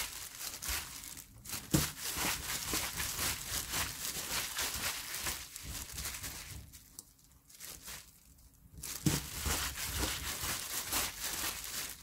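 Clear plastic disposable glove crinkling and rustling in quick repeated strokes as a hand kneads blanched young perilla leaves with seasoning in a pan, with a couple of short lulls. Two sharp knocks, about two and nine seconds in, are the loudest sounds.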